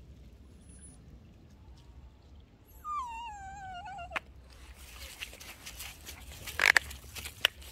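A small dog whines once, a wavering cry about a second long that falls in pitch. A sharp click follows, then two short, loud, sharp sounds near the end.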